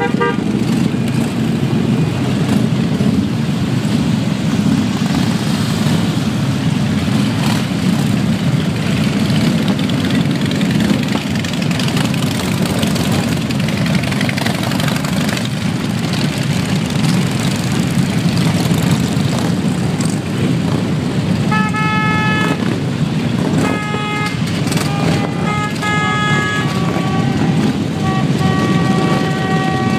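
A large group of motorcycles rumbling steadily as they ride past. In the last third, several horns of different pitches honk again and again.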